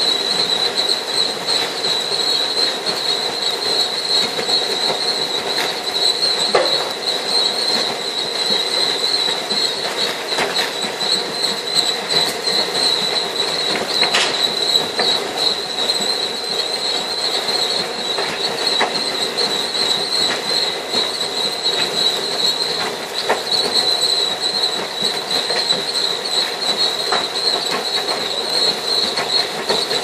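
Potato cleaning line running: belt conveyors and brush rollers make a steady mechanical rumble with a high, even whine. Potatoes dropping and tumbling through the machine give occasional knocks.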